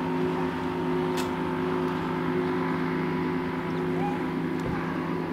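Steady hum of a boat motor running under the fishing boat, unchanging in pitch, with a light wash of wind and water noise.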